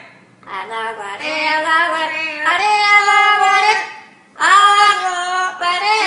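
Amazon parrots singing in a human-like voice: long, wavering held notes in two phrases, with a short break about four seconds in.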